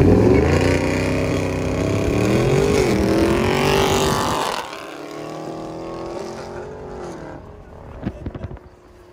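1988 Toyota Supra MK3's 7M-GE straight-six revving hard under full-throttle acceleration, its note climbing. About four and a half seconds in the throttle lifts and the engine drops to a quieter, slowly falling note as the car coasts, with a few clicks near the end.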